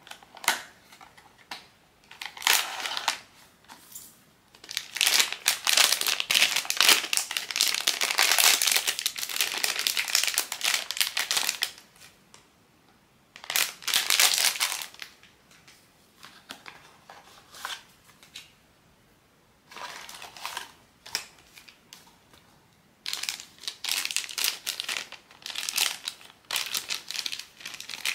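Blind-box packaging crinkling and rustling as it is handled and opened, in bursts: a long stretch from about five to twelve seconds in, a short burst around fourteen seconds, and a run of shorter crinkles near the end.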